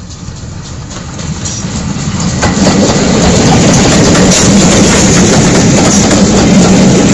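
Steam-hauled passenger train, GWR Modified Hall 4-6-0 'Foremarke Hall' and its coaches, passing close by. It grows louder over the first two and a half seconds, then holds a loud, steady running noise of wheels on rails as the coaches go past.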